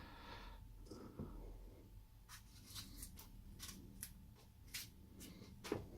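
Near silence with a few faint, short clicks and light handling noises, scattered about once a second, over a low steady room hum.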